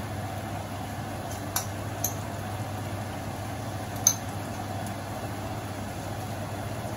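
Water spinach cooking in a wok over a gas burner: a steady hiss and low hum, with a few light clinks of a spoon against a glass bowl as sauce is scraped in, the sharpest about four seconds in.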